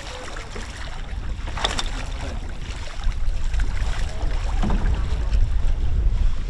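Wind rumbling on the microphone over sea noise, with a hooked fish thrashing and splashing at the surface as it is hauled up alongside the boat. The wind rumble grows louder about halfway through.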